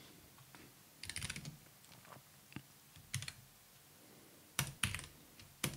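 Computer keyboard typing: a quick run of keystrokes about a second in, a few scattered single keys, then louder, sharper key presses near the end.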